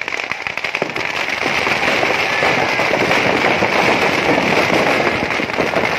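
Firecrackers packed inside a burning Ravan effigy going off in a dense, continuous crackle of rapid pops, growing louder about a second and a half in.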